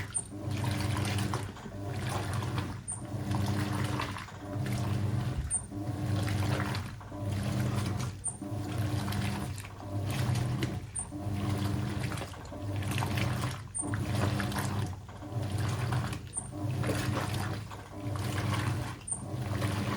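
Hoover 800RL top-loading washing machine agitating on its regular wash cycle, the motor humming and the water sloshing as a bulky comforter is dragged through a high water level. The agitator works in long strokes with a brief pause between each, about one every second and a half.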